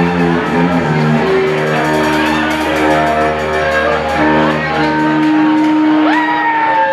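Band music: a melodic string lead over a steady bass line that drops out about five seconds in, with a note sliding up high near the end.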